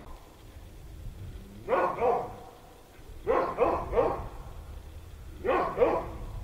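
A dog barking in three short bouts of two or three barks each, a second or so apart.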